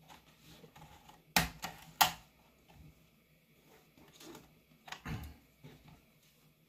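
Plastic snap-clips of a Lenovo IdeaPad 320 laptop's bottom cover popping loose as the case is pried apart with a plastic opening tool. Two loud sharp clicks come about a second and a half in, and a few smaller clicks a few seconds later, with light handling noise between them.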